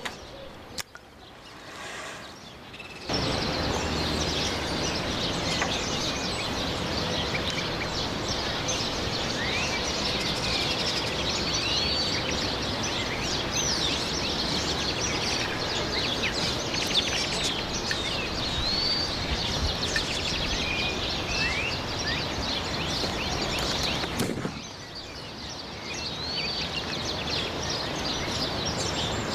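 Many birds chirping over a steady background hiss. The hiss comes in abruptly about three seconds in and drops away sharply near the end, leaving softer chirping.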